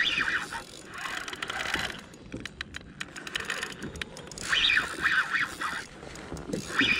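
Okuma Ceymar C65 spinning reel clicking and whirring in short bursts of about a second, four times, as a hooked fish is played.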